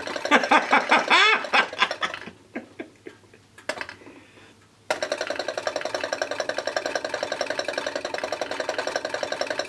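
Homemade balloon-diaphragm Stirling engine running on a hot plate: a fast, even mechanical ticking of about eight to ten strokes a second as its weighted top bounces on a rubber band and a magnet lifts and drops the wire-wool displacer. The ticking breaks off about two seconds in and starts again abruptly about five seconds in.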